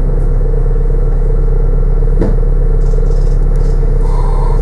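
Steady rumble of a New Routemaster diesel-electric hybrid double-decker bus heard from inside on the upper deck, with a single knock about two seconds in and a short tone near the end.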